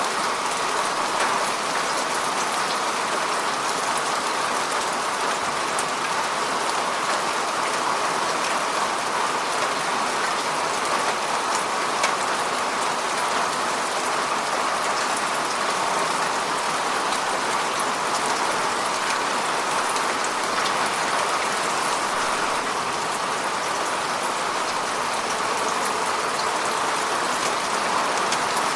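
Steady rain falling onto the surface of a lake, a dense even hiss of many small drops patting the water.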